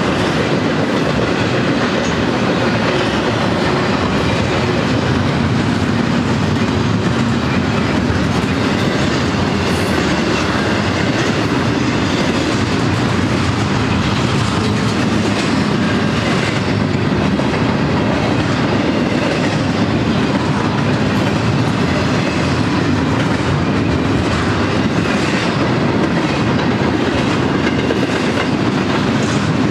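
Double-stack intermodal train's well cars rolling past at close range: steady, loud noise of steel wheels on rail, with a few faint clicks over the track.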